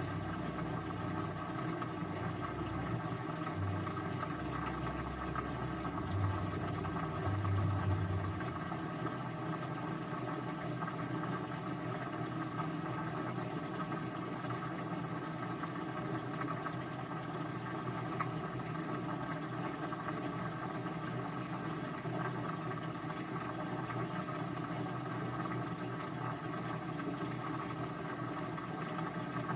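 Steady mechanical whir and hum, with some low rumbling in the first several seconds that stops about eight seconds in.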